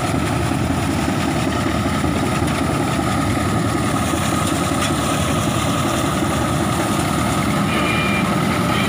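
Ragi (finger millet) harvesting machine running: a steady engine drone with a faint, even high whine over it.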